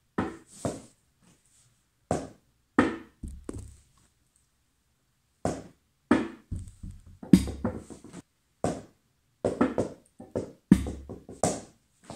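A small ball being thrown and bouncing, a string of sharp knocks and thuds on hard surfaces, with quick runs of several bounces in the middle and near the end.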